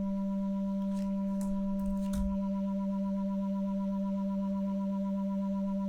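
A single sustained note from a software synthesizer patched in Max/MSP: a steady, pure low tone with a few faint higher overtones. About halfway through, one of the upper overtones starts to pulse rapidly.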